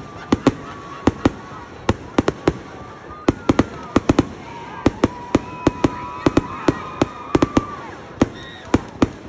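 Fireworks going off in a rapid, irregular string of sharp bangs, about three a second, with voices underneath.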